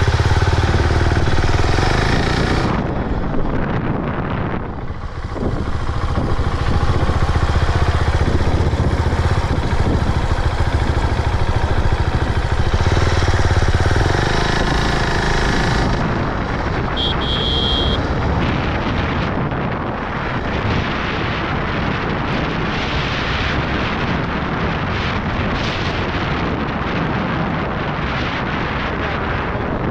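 Husqvarna Vitpilen 701's single-cylinder engine running as the motorcycle is ridden two-up, strongest in the first half, with a brief dip in level about four seconds in. In the second half wind noise on the microphone rises to match the engine.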